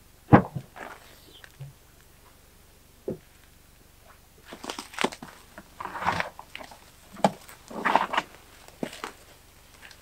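Gear being handled in an open car boot: a sharp knock just after the start, then irregular rustling and clunks of bags and equipment being moved about.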